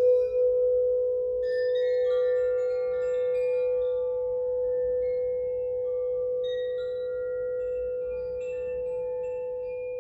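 Crystal singing bowl sounding one steady, sustained low tone, with a scattering of higher ringing notes at many different pitches coming in about a second and a half in.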